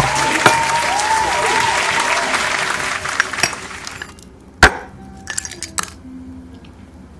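Applause, fading out about four seconds in, followed by one sharp clink and a few lighter clicks from a ceramic plate being handled.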